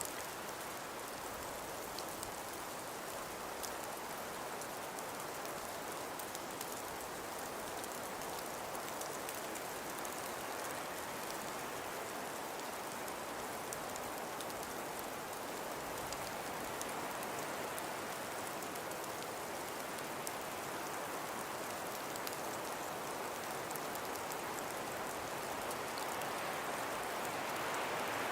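Steady hiss of wind-driven snowfall, with faint scattered ticks of flakes, growing a little louder near the end.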